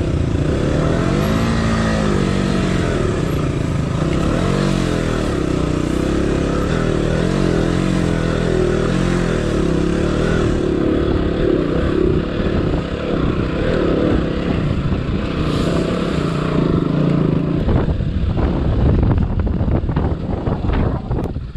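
Motorcycle engine revving under load on a steep off-road hill climb, its pitch rising and falling as the throttle is opened and eased. A run of knocks and rattles comes in near the end.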